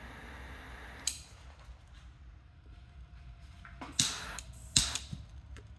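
Butane torch lighter's jet flame hissing, cutting off with a click about a second in; then two sharp clicks of the torch's ignition about four and five seconds in, each followed by a brief hiss of flame.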